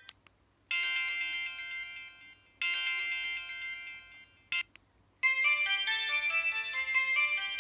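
Samsung SGH-E900 mobile phone playing its built-in tones. A bright electronic chime sounds twice, about two seconds apart, each fading out over a second or so. After two short blips, a new melodic ringtone with quick changing notes starts about five seconds in.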